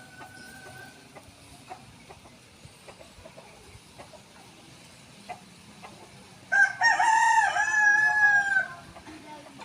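A rooster crowing once, about two and a half seconds before the end: a loud call of about two seconds, short opening notes then a long held note that drops at the close.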